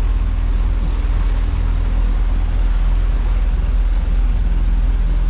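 Steady noise aboard a small fishing boat in heavy rain: a low rumble with an even hiss of rain over it, unchanging throughout.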